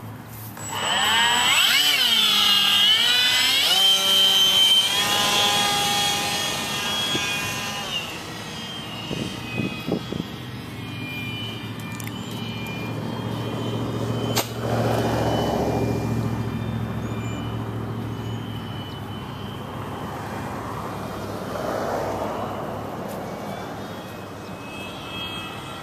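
Electric motor and propeller of an RC foam flying wing powering up at launch about a second in, its high whine wavering up and down in pitch for a few seconds as the throttle changes, then holding steady. The whine then fades as the plane flies off, coming back fainter and swelling twice as it passes.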